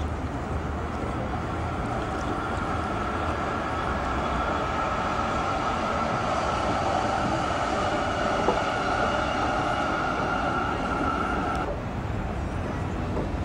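Blue-and-white Zurich Tram 2000 tram running past with a steady high-pitched whine over a low rumble. The whine grows louder, then stops abruptly near the end.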